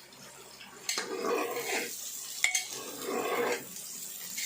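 A spoon stirring onions and green chillies frying in oil in a pressure cooker, scraping and sizzling in swells, with two sharp knocks of the spoon against the metal pot about a second and two and a half seconds in.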